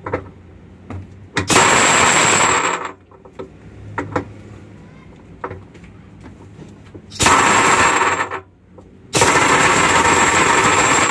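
Impact wrench hammering in three bursts of one to two seconds each on the bolt at the centre of a top-load washing machine's drum hub, with small knocks of the tool between bursts. The bolt's head is worn so the socket does not grip, and the bolt does not come undone.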